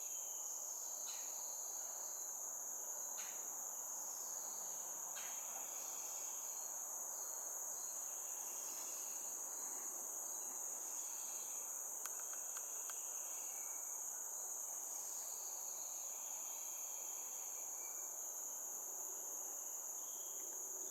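Steady high-pitched chorus of insects, with faint short bird calls now and then.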